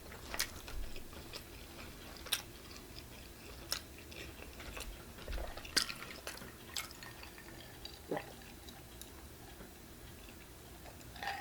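Close-miked chewing of pizza: quiet mouth sounds broken by a handful of sharp, wet clicks and smacks at irregular moments.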